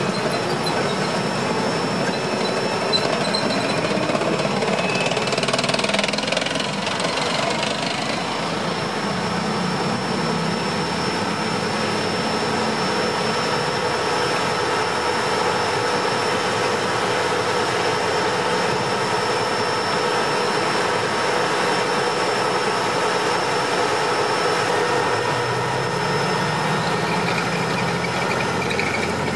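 Tracked armoured vehicles rolling on asphalt: steady engine noise with the clatter of steel tracks. At first it is an M1 Abrams tank turning away. Near the end, an M88 recovery vehicle's diesel comes closer with a deeper rumble.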